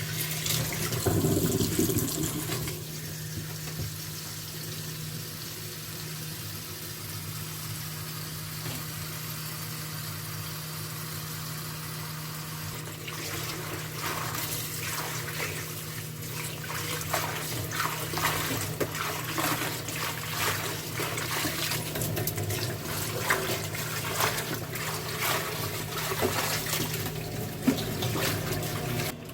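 Running water, steady at first, with uneven splashing and sloshing from about halfway through.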